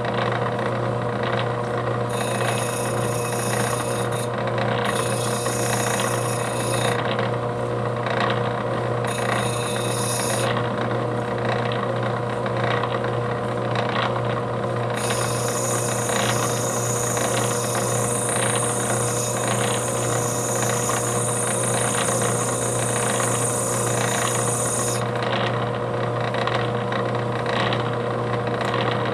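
A lapidary grinding machine's motor runs steadily with its lap spinning. A gritty hiss comes and goes as a stone on a dop stick is pressed against the lap: three short stretches in the first ten seconds or so, then one of about ten seconds.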